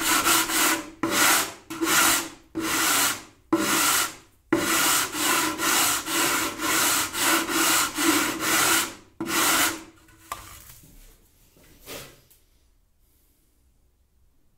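Sanding block rubbed back and forth along the wooden rim of a stave-built bağlama bowl, truing the edge where the soundboard will be glued. The strokes run rhythmically, about two a second, and stop about ten seconds in, followed by a faint tap or two.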